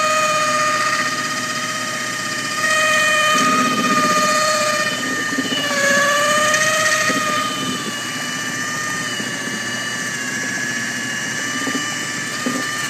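Electric drill driving a paint mixer paddle in a 5-gallon pail of thick, yogurt-like ceramic roof coating, its motor whine steady with a brief sag in pitch about halfway through. The stirring blends the settled solids back to a workable consistency for spraying.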